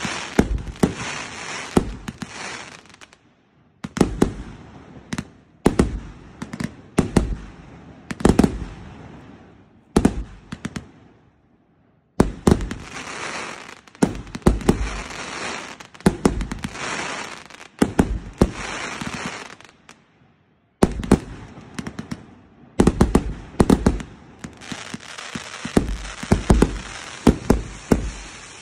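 A 168-shot consumer fireworks cake firing in rapid succession: a dense run of sharp bangs from shots launching and bursting, with crackling between them. It breaks off briefly three times.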